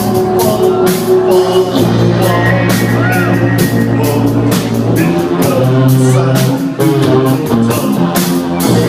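Live rock band playing: electric guitar, bass and drum kit with regular cymbal hits, and a vocal line over the top.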